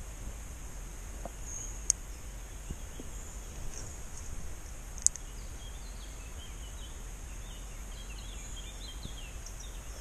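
Outdoor riverbank ambience: a steady high insect drone over a low rumble, with faint bird chirps in the second half. Two sharp clicks come about two and five seconds in.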